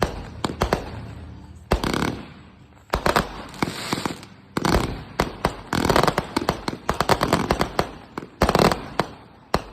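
Fireworks going off: a few single bangs, then dense runs of rapid crackling reports from about three seconds in until near the end.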